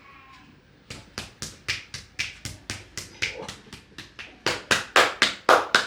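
Rapid, rhythmic hand slaps of a percussive back massage, about four a second, growing louder near the end.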